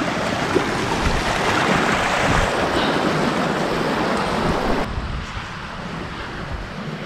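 Rushing water of a fast-flowing rocky stream, a steady hiss, with low wind buffeting on the microphone. About five seconds in it cuts off suddenly to quieter, duller wind noise.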